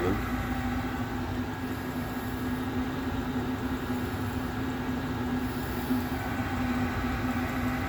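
Chinese 8 kW diesel air heater running on low with a steady, even hum from its blower.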